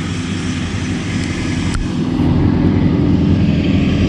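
Steady low engine drone, growing gradually louder from about halfway through, with a single faint click in the middle.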